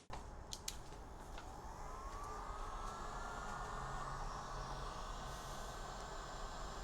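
A few sharp clicks, then a heat gun starts up: its fan whine rises in pitch over about a second and a half and settles into a steady run with the hiss of blowing air. It is heating the plastic door-handle trim to soften it before prying.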